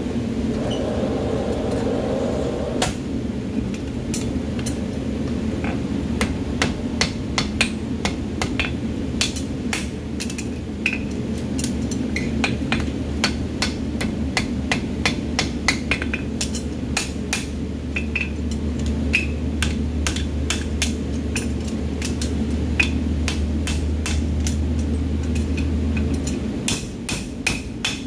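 Farrier's hammer striking a red-hot steel horseshoe on an anvil, forging it to shape: a long run of sharp, ringing blows in quick, irregular groups, starting about three seconds in. A steady low rumble runs underneath.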